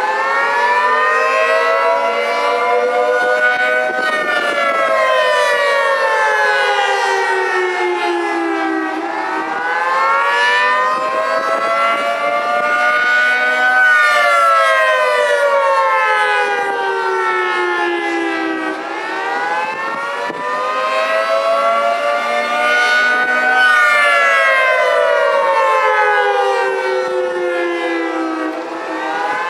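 Federal Signal 3T22 three-tone outdoor warning siren sounding the attack signal. Its wail rises for about four to five seconds and falls for about five, three times over, with several tones sounding together as a chord.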